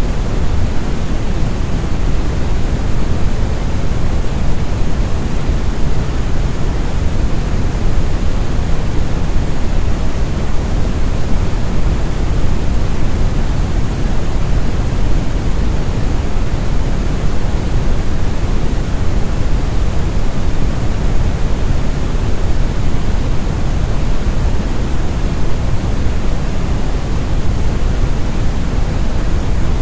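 Deep, smooth brown noise (Brownian or red noise): a steady, even rumbling hiss, strongest in the low bass and fading off toward the treble, with no change or break.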